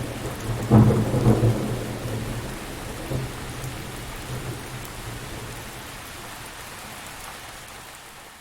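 Steady rain with a low rumble of thunder about a second in, then the whole storm fading slowly out.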